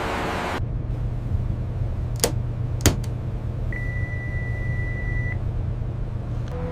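A low steady hum with two sharp clicks, followed by a single steady electronic beep lasting about a second and a half.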